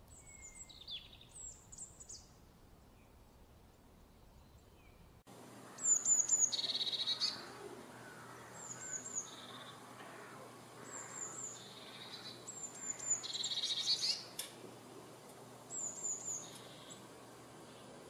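Small songbirds calling: a few faint high chirps, then a blue tit singing from about five seconds in. It repeats phrases of two or three thin, high, falling notes, each followed by a lower buzzy trill, again and again.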